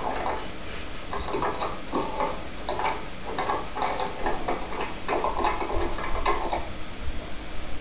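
Cockatiel giving rapid, rasping chattering calls in a run of short bursts while rubbing itself against a perch toy, a sign of sexual self-stimulation. The bursts stop about six and a half seconds in.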